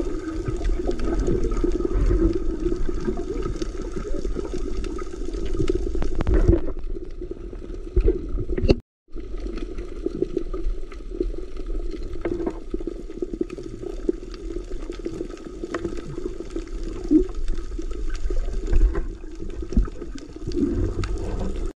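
Underwater water noise: a steady muffled rush with scattered faint clicks, broken by a moment of silence just before nine seconds in.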